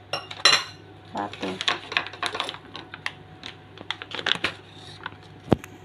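Quick, irregular clicking and tapping as a block of butter is worked out of its wrapper into a mixing bowl of sugar, with one sharper knock near the end.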